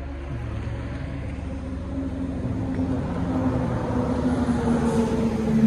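Engine of a utility bucket truck approaching along the road, its hum growing steadily louder.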